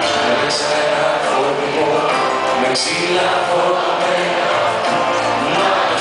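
Live Greek pop song played loud in an arena: a male singer's voice over a full band through the PA, with two bright cymbal-like hits, one about half a second in and one about three seconds in.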